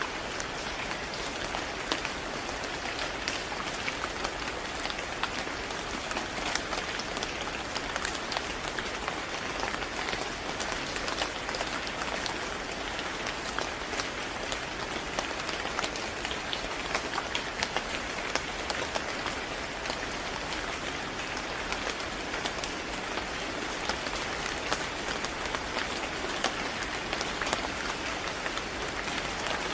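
Steady rain falling, a dense even hiss with many individual drops ticking on a hard surface.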